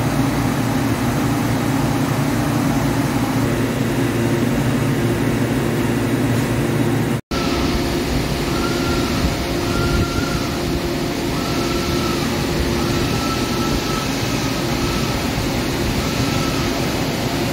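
Large Hankook CNC lathe running: a steady machine hum that drops out for a split second about seven seconds in. After that a higher tone comes and goes about every second and a half, and a thin rising tone sounds near the end.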